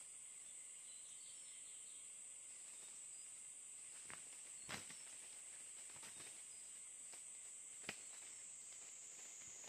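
Faint, steady high-pitched drone of insects in the forest, broken by a few sharp clicks or snaps about four and a half and eight seconds in.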